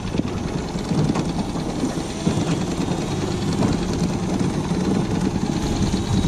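Small outboard motor running steadily, pushing the fishing boat along at trolling speed.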